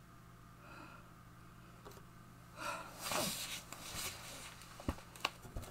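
Soft rustling and breathing as a man shifts from kneeling to sitting on a floor mat, then a few faint clicks near the end.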